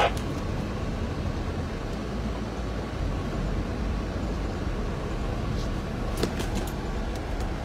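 Steady engine and road noise inside the cab of a moving Toyota van, with a few faint clicks about six seconds in.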